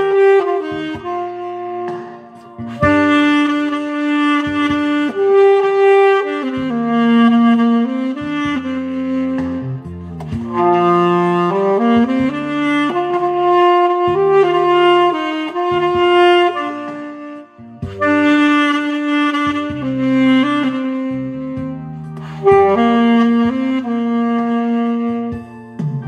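Saxophone playing a slow song melody over a backing track with bass and chordal accompaniment.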